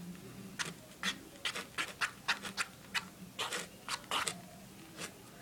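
A toothpick dragged and jabbed through shaving cream against a paper plate: a run of short, irregular, quiet scratches as the food colouring is swirled into a design.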